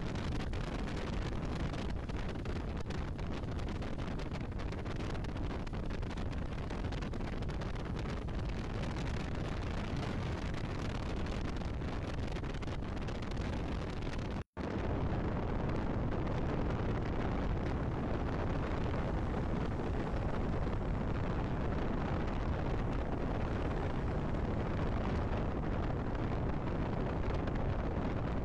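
Steady rush of a car driving at speed on a wet road: tyre and spray noise with wind buffeting the microphone. It cuts out for an instant about halfway through, then carries on a little louder.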